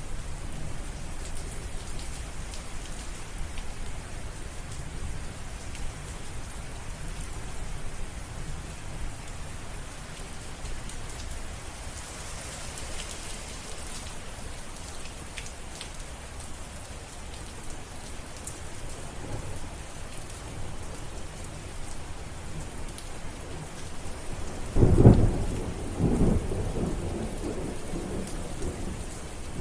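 Steady rain with low rolling thunder in the background, then a loud thunderclap about 25 seconds in, followed by more rumbling.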